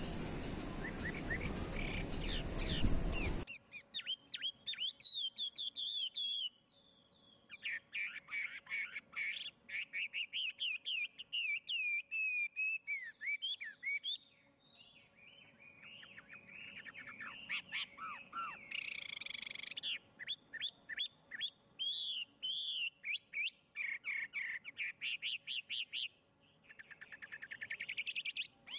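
Songbirds chirping and singing in quick runs of short, high notes that sweep up and down, with brief pauses between runs. A steady background hiss cuts off abruptly about three seconds in.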